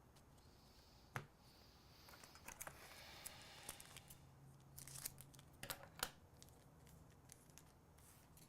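Faint rustling of a trading card pack being handled and its wrapper torn open, with a sharp click about a second in and a few more sharp clicks and taps around the middle.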